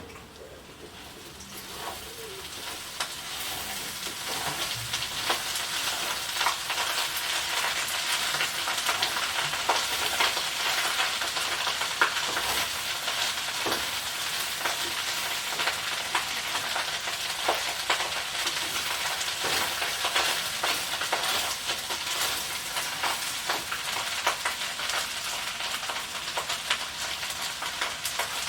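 Food frying in a hot pan: a steady sizzle full of small crackles and pops, building up over the first few seconds and then holding.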